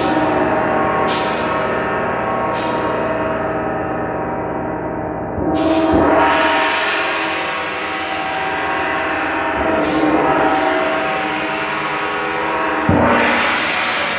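Hanging metal gongs struck repeatedly with a soft-headed mallet, a long dense ringing of many overlapping tones that swells again after each stroke. The heaviest strokes fall about five and a half seconds in and near the end.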